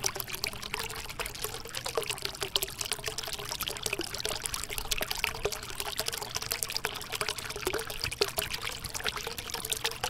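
Water from a small tabletop waterfall fountain trickling and splashing steadily into its basin, with many small drips.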